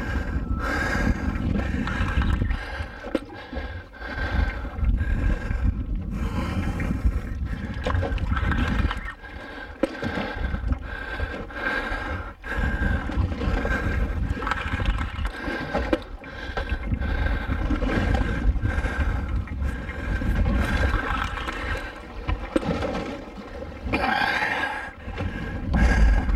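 Boat engine running with a steady drone, and wind buffeting the microphone in uneven gusts.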